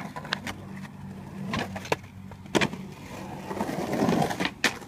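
Skateboard wheels rolling on a concrete bowl, the rolling swelling a little before the end, with several sharp clacks of the board and trucks hitting the concrete. A steady low hum sits underneath for the first few seconds.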